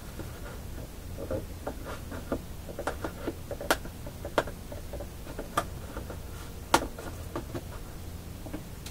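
Scattered sharp clicks and small knocks, a dozen or so and the loudest about two-thirds of the way through, from hands working at the stapled cover of a GE Beam-A-Scope loop antenna while opening it. A faint steady low hum runs underneath.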